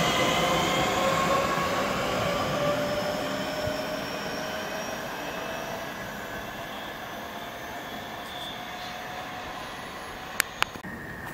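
Southeastern Class 465 Networker electric multiple unit accelerating away, its traction motor whine rising slowly in pitch as the rumble of the train fades into the distance. Two sharp clicks near the end.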